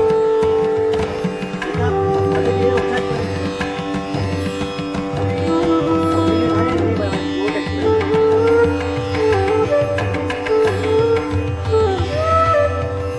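Background instrumental music in an Indian classical style: a plucked string melody with sliding notes over a steady held drone, with hand-drum beats underneath.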